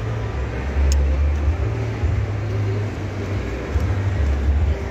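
Low, uneven rumble that swells and drops every second or so, over a steady background hum.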